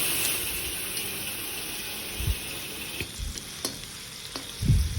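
Onions sizzling as they fry in oil with whole spices in a pan, a steady hiss, with a few knocks and clicks from stirring.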